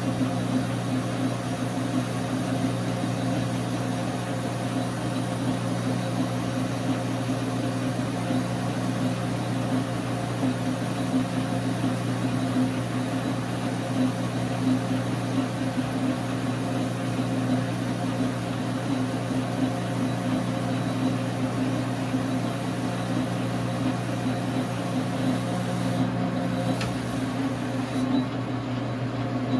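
Dar Sin 12x37 gap bed lathe running steadily, its motor and gear train making a constant hum.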